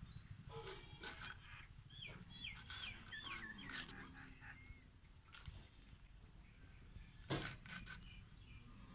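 Crisp crunching cuts of a fresh cabbage being sliced against a fixed curved blade (an aruvamanai), a few scattered cuts with the loudest about seven seconds in. A bird chirps a quick run of short notes a couple of seconds in.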